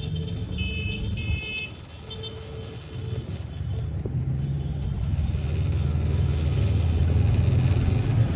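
A motor vehicle running, with low engine and road rumble that builds gradually louder over the last few seconds. Two short high-pitched tones sound about a second in.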